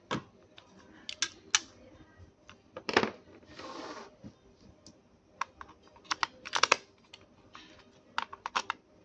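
Irregular small plastic clicks and taps from handling a toy RC truck and its packaging, with a knock about three seconds in followed by a short rustling hiss, then quick runs of clicks.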